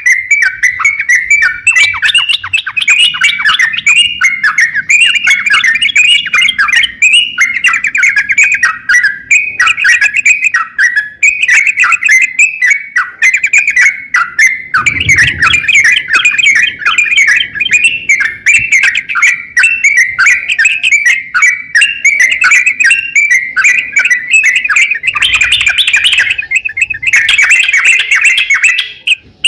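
Crokcokan (yellow-vented bulbul) singing non-stop: a fast, chattering stream of bright chirps and warbles without pauses, with a brief low thud about halfway through.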